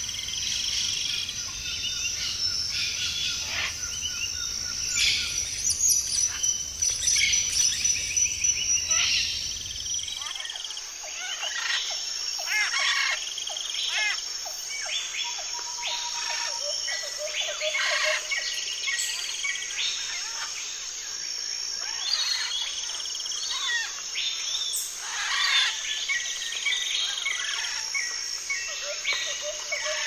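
Many birds chirping and calling together in a busy chorus of short chirps and trills over a steady high insect drone. A low background rumble drops out about ten seconds in.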